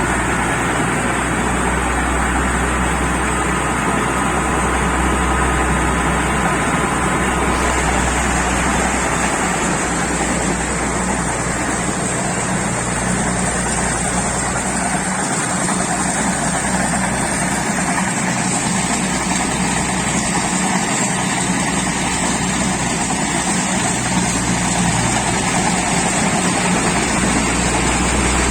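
Kubota DC-70 combine harvester's diesel engine running steadily, a constant low drone with machinery noise over it. A higher hiss joins about seven seconds in.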